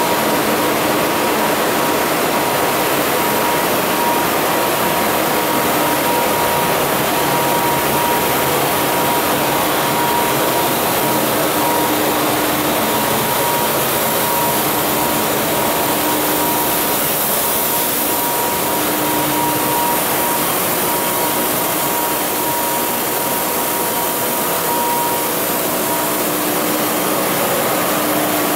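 Sheetfed offset printing press machinery running: a loud, even, blower-like hiss with a steady high hum held above it.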